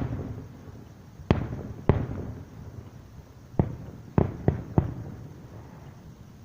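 Fireworks shells bursting: six sharp booms, each trailing off in a low rolling rumble, the last three coming in quick succession about four seconds in.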